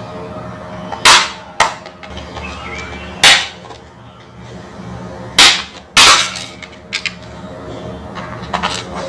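Plastic snap clips of a tablet's back cover popping loose as the case is pried open with an opening tool: about six sharp snaps a second or two apart, the loudest a little after one second and around five to six seconds in.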